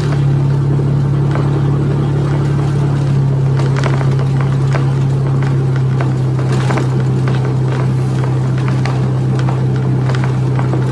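Vehicle engine running at a steady pitch under way, with road noise and scattered light clicks and scrapes.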